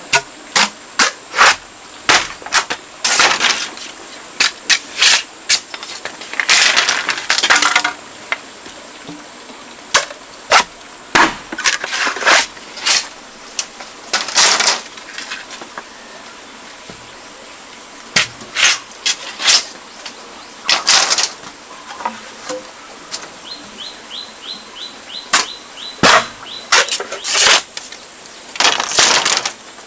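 A large knife chopping into green bamboo poles with sharp strikes at irregular intervals, with several longer stretches of cracking and tearing as the poles split lengthwise into strips.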